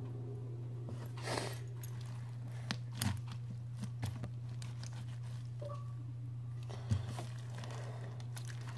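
Slime being squished and stretched by hand: scattered small clicks, pops and crackles, over a steady low hum.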